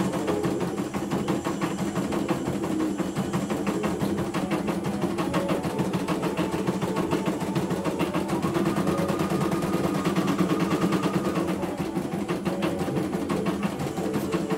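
CNY E900 computerized embroidery machine stitching a design: the needle runs up and down in a rapid, even chatter while the hoop drive shifts the fabric, steady throughout.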